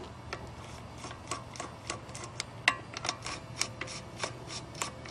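Socket ratchet clicking in an irregular run of short, sharp clicks, about three or four a second, as the crankcase cover bolts are backed out of a Kawasaki lawn tractor engine.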